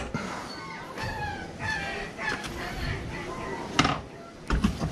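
Chickens clucking, a series of short calls, with two sharp knocks, one about four seconds in and one near the end. No engine is running.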